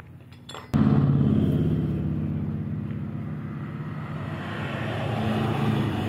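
A motor running with a steady low rumble, cutting in suddenly about three-quarters of a second in and then slowly dipping and swelling in level.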